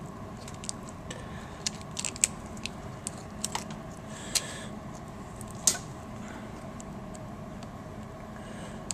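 Scattered light clicks and taps of a screwdriver prying a small plastic clip loose in a laptop screen assembly, over a faint steady hum. The clicks come irregularly for the first six seconds or so, the sharpest about five and a half seconds in, then it goes quiet apart from the hum.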